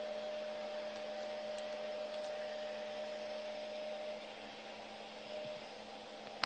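Hooded hair dryer worn on the head, running with a steady blower hiss and hum; a steady whining tone in it drops away about four seconds in.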